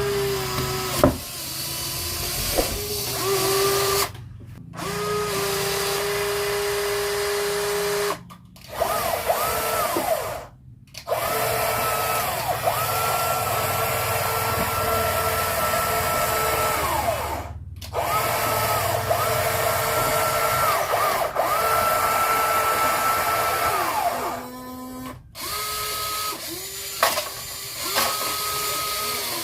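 Small electric gear motors of radio-controlled toy construction vehicles whining in repeated runs of a few seconds. Each run rises in pitch as it starts and falls as it stops, and several runs cut off abruptly.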